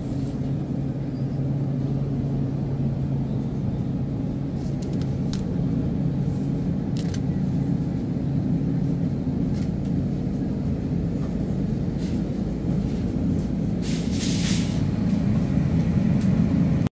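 Steady low hum and rumble of a refrigerated meat display case, with a held low tone through the first half and a few faint clicks. A brief hiss comes about three-quarters of the way through.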